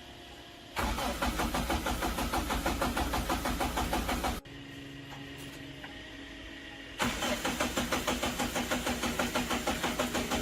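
Engine chugging in an even beat of about seven pulses a second, in two stretches of three to four seconds that start and stop abruptly.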